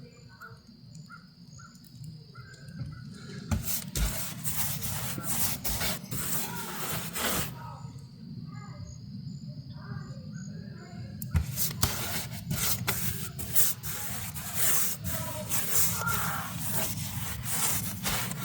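Paintbrush strokes scraping and brushing over wooden house siding, in two long spells of scratchy strokes. In the pauses between them, birds call faintly.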